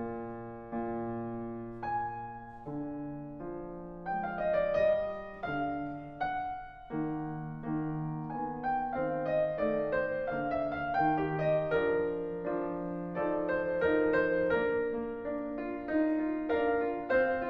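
Background piano music: a gentle melody of sustained notes.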